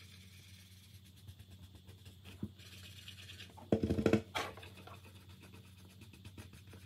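Paint marker tip scratching and dabbing on a plastic light switch cover as it is coloured black. A brief, louder sound cuts in about four seconds in.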